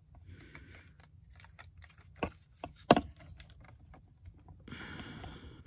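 Hard plastic parts of an APC Toys Bossy Flame transforming robot figure clicking and rubbing as they are handled, while a panel's hook is worked into its slot. A few small clicks, a sharper one about three seconds in, then a short scraping rub near the end.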